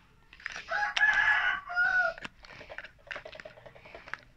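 A rooster crowing: one long call starting about half a second in, ending in a shorter, lower note. It is the loudest sound present, followed by a few faint clicks.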